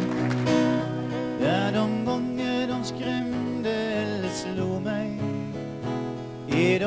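A man singing a song while accompanying himself on acoustic guitar.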